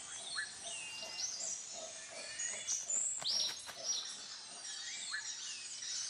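Rainforest ambience: many birds chirping and whistling at once. The calls are short and high, some sliding up or down in pitch, over a faint steady hiss.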